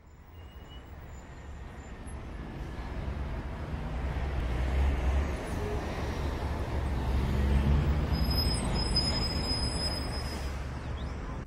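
City traffic ambience: a steady low rumble of road traffic that fades in from silence over the first few seconds, with a few faint high chirps near the end.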